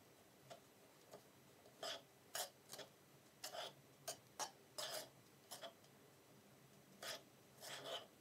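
A metal spoon stirring and scraping a dry, crumbly mixture in a wooden bowl: soft, gritty scrapes in irregular strokes, about two a second.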